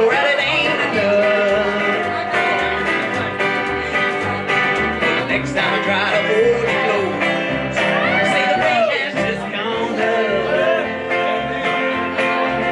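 Live country band music: electric guitar, upright bass and acoustic guitar playing together, the bass plucking steady notes about twice a second.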